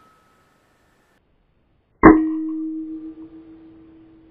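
One shot from a suppressed FX Impact M3 .22 PCP air rifle about two seconds in: a sharp report followed by a metallic ringing tone that fades slowly.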